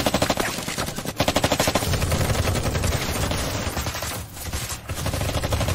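Sustained automatic gunfire, rapid shots in close succession with a low rumble underneath from about two seconds in. There is a brief lull a little after four seconds.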